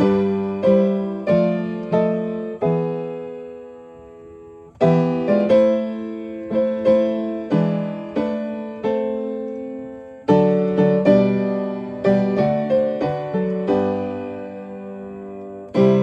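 Upright piano playing a hymn accompaniment in chords, phrase by phrase. A chord is held and dies away, and the next phrase starts about five seconds in, with another starting about ten seconds in.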